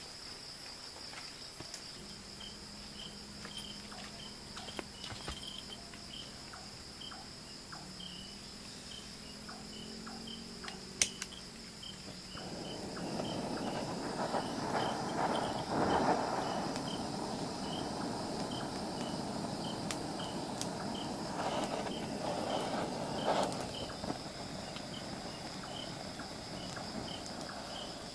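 Crickets chirping in a steady chorus. After a sharp click about eleven seconds in, a canister-mounted butane torch hisses steadily as its flame is held to a pile of dry twigs to light them.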